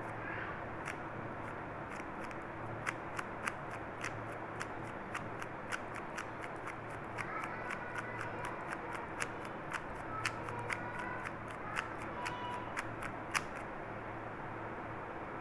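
Plastic stickerless 3x3 speed cube being turned by hand, its layers clicking with each turn at an irregular pace of about three clicks a second, over a steady background hiss.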